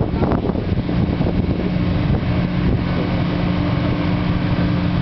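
Amphibious bus running as a boat on the water, heard from inside its passenger cabin: a steady engine drone with an even low hum.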